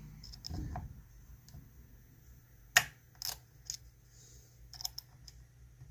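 A dimple pick and tension bar working the pins of an ISEO R6 six-pin dimple lock: a few scattered faint metallic clicks, with one sharper click about three seconds in.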